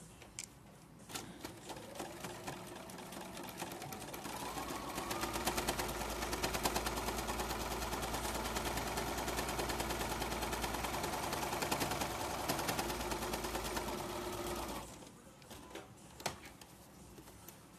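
Electric sewing machine stitching: it starts slowly about a second in, speeds up to a steady fast run, and stops abruptly about fifteen seconds in, followed by a few light clicks.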